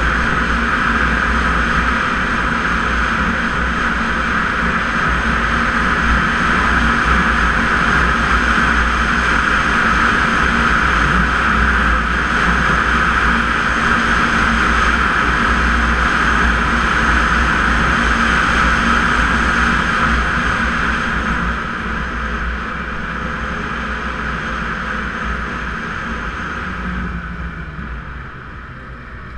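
Snowmobile running steadily at speed on a trail, a loud, even drone with a low rumble, which eases off over the last several seconds as the sled slows.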